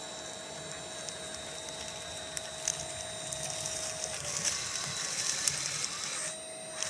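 A 1/12-scale RC Liebherr 636 track loader's electric motors and gear drive whine steadily as it crawls on its tracks into a dirt pile and lifts its bucket. From about three seconds in, a louder hissing, clicking grind of the drivetrain under load builds, stops abruptly just past six seconds, then comes back in a short burst near the end. The load is pushing the loader toward its peak current draw of about 10 amps.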